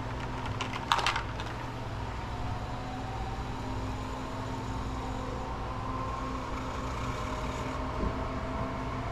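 Centrifuge spinning up blood samples for a platelet-rich plasma preparation, a whine rising slowly in pitch over a steady low hum. A sharp click about a second in.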